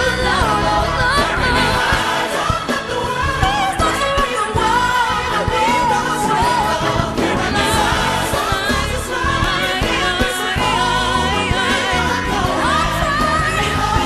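Live gospel-style music: a female lead vocalist sings a melodic line full of bending runs, backed by a gospel choir and a band with keyboards.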